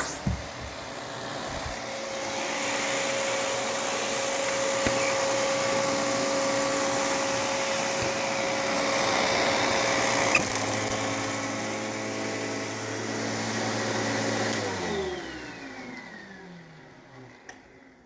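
Riccar R20P upright vacuum running steadily, with a click about ten seconds in after which its tone changes. It is then switched off, and its suction motor winds down with a falling whine and fades out.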